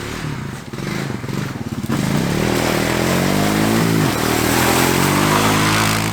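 Small motor vehicle's engine revving hard under acceleration. Its pitch climbs over the first few seconds, drops sharply about four seconds in, then holds high and loud.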